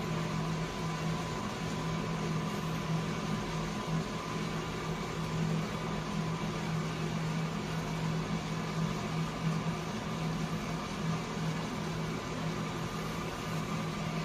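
Small electric coffee roaster running steadily early in a roast, with the beans just starting to yellow: an even airy rush with a steady low motor hum.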